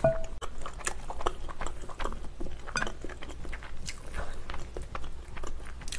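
A person chewing cabbage kimchi close to the microphone: irregular wet crunches and smacks, several a second.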